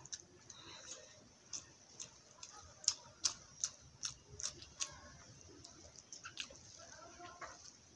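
Close-up eating sounds of rice and potato curry eaten by hand: irregular wet clicks and smacks of chewing and fingers working the rice, with a cluster of louder smacks about three seconds in.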